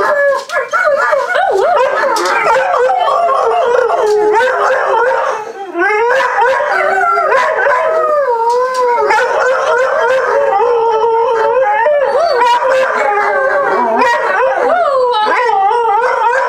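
A Boxer–Malamute mix dog howling in long, wavering howls that rise and fall in pitch. Several howls overlap throughout.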